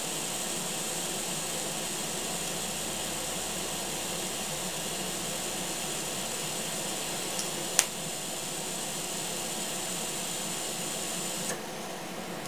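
TIG welding arc burning on a steel plate at about 92 amps: a steady hiss that cuts off about a second before the end as the arc is stopped. A single sharp click partway through.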